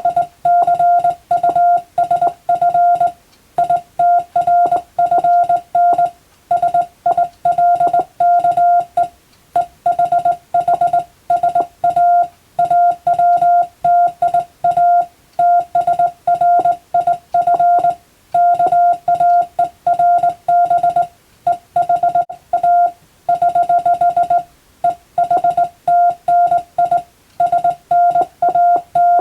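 Morse code (CW) as a single-pitch beeping tone, keyed on and off in short dots and longer dashes, grouped into letters and words with short pauses between them, as in radiotelegraph code practice.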